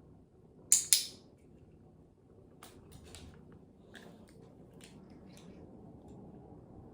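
Training clicker pressed and released, a sharp double click about a second in. It is followed by a scatter of faint small ticks and crunches.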